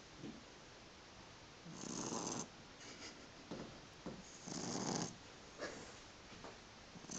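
Three-month-old Boston terrier puppy snoring in its sleep. There are three snores about two and a half seconds apart, with a few short, softer sounds between them.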